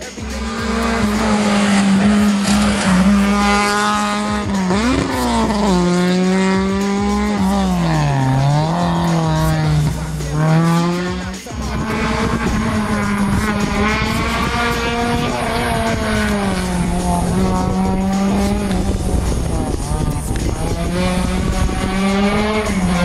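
Hillclimb rally car engine running hard at high revs. Its pitch dips and climbs back several times as the driver lifts off and gets back on the throttle through the corners. The sound breaks briefly about halfway through.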